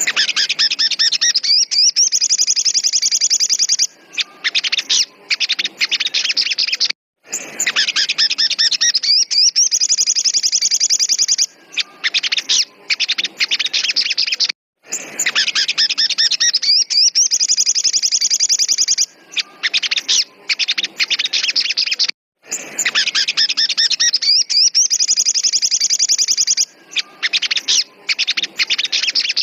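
Sogon (crested jay) giving loud, rapid, high rattling call phrases. Each lasts about three seconds and is followed by a few shorter notes. The phrase repeats almost identically about every seven and a half seconds.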